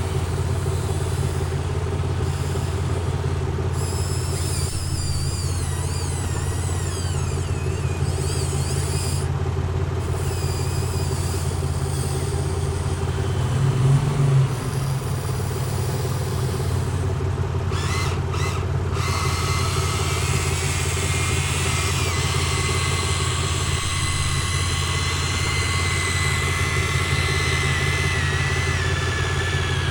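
Excavator running with a steady low drone, with thin higher whining tones that waver and come and go, and a brief louder surge about halfway through.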